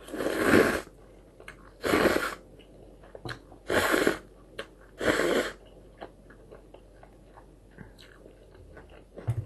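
Instant cup ramen being eaten: four loud slurps of noodles and broth, about one every one and a half seconds, then only faint clicks of chewing.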